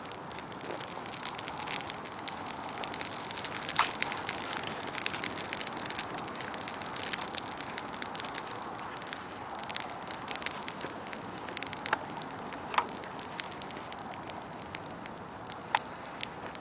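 Bonfire burning and crackling, a steady hiss broken by frequent sharp pops, a few of them louder.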